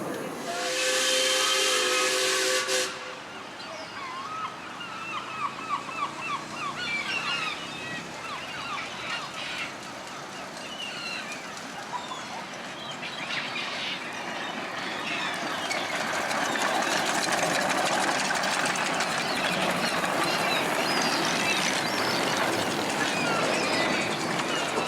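A miniature steam locomotive's whistle sounds once, loudly, for about two seconds near the start, with a hiss of steam. Through the second half a rushing noise builds and grows louder.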